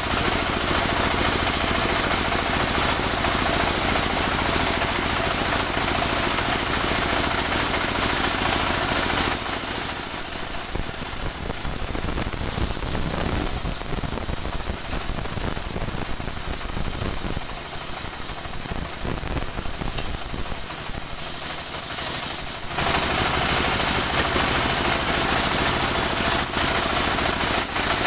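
Portable engine-driven band sawmill running and sawing saman (rain tree) wood: a loud, steady mechanical din with a high whine. The harsher noise thins for about thirteen seconds from roughly a third of the way in, then comes back abruptly.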